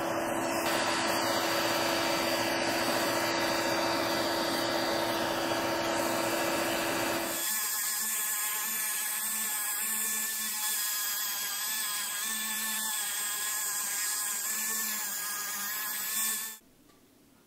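Benchtop belt sander running, with a wooden lure blank sanded against the belt. About seven seconds in it changes to the higher whine of a flex-shaft rotary tool with a sanding drum grinding the wood, which stops abruptly near the end.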